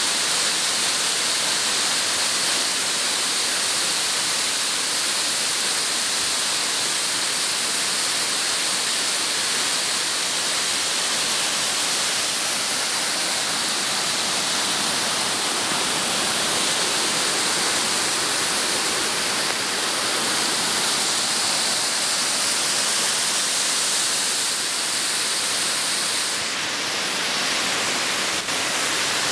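Small waterfall cascading down a rock face: a steady, unbroken rush of splashing water.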